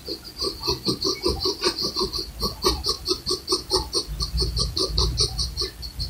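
Graphite pencil scratching across paper in quick, short hatching strokes, about four to five a second, with a brief pause near the end.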